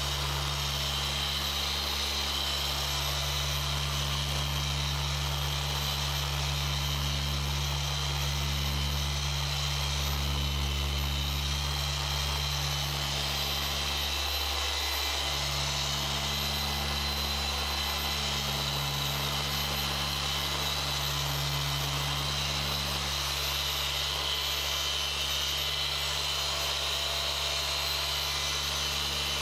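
Rupes Bigfoot dual-action polisher with a yellow foam polishing pad, running steadily as it is worked across a car's door panel in the fine-polish refining stage. A steady motor hum with a high whine; its low note breaks off briefly about halfway through, then picks up again.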